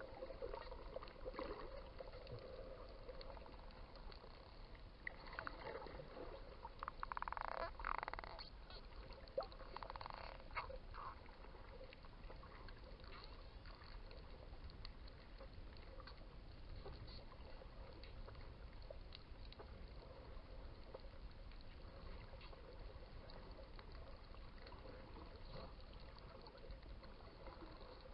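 Dolphins heard underwater: buzzing pulsed calls and click trains, loudest about seven to eight seconds in and again around ten seconds in, over a faint steady crackle of clicks and a low underwater rumble.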